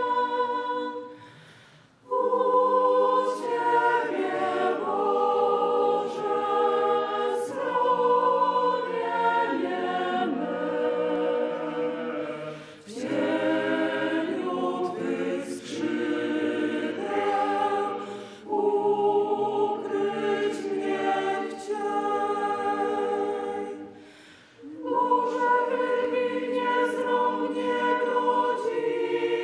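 Choir singing in several voices at once, in long phrases that break off briefly about 2 s in, near the middle and about 24 s in before going on.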